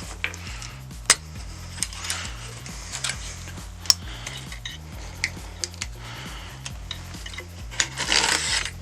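Light metallic clicks and clinks of tools on a bike's handlebar shifter and clamp, scattered one at a time, with a short louder scrape near the end, over a steady background music track.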